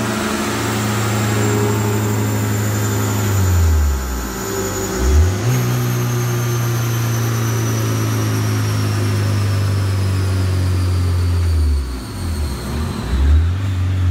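Turbocharged Honda S2000 four-cylinder engine running at a steady speed. Its revs drop and pick back up about four seconds in and again near the end. A high whine falls slowly in pitch throughout.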